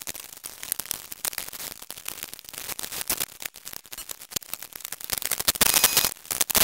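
Shop work sounds: irregular clicks and knocks, then a loud hissing burst with a high whine for about a second near the end.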